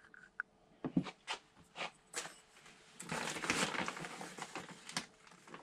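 Light knocks from handling a plastic seedling cell tray, then a couple of seconds of gritty rustling and scraping as potting compost is scooped out of a ceramic bowl.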